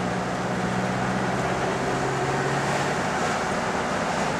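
Steady road noise inside a moving car: engine and tyre noise while driving in city traffic, with a low hum that drops away about three seconds in.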